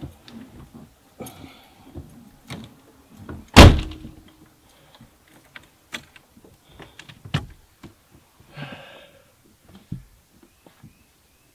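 A car door shuts with one loud thunk about three and a half seconds in, most likely the driver's door of a 1986 C4 Corvette. Scattered smaller clicks, knocks and rustling come from someone settling into the seat and handling the dash controls.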